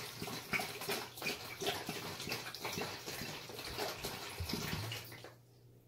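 Water pouring out of an upturned glass bottle into a white plastic container, stopping about five seconds in.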